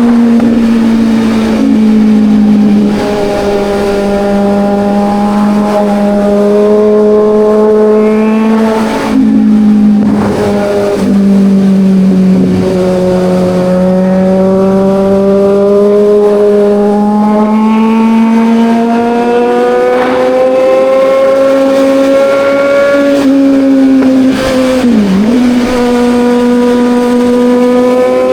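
Kawasaki Ninja 1000's inline-four engine running hard under way, its note holding high and drifting slowly up and down. The note breaks and drops briefly about ten and twelve seconds in, and dips sharply once near the end.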